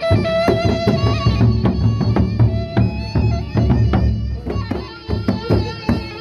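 Gendang beleq, the Sasak drum ensemble of Lombok, playing: large double-headed barrel drums beating a fast, dense rhythm with metallic cymbal strokes. A melody of held pitched notes sounds over the drumming.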